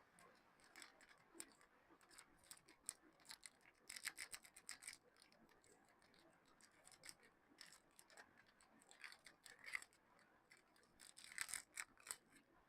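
Soap packaging being unwrapped by hand: quiet crinkling and rustling of the wrapper in irregular bursts, busiest about four seconds in and again near the end.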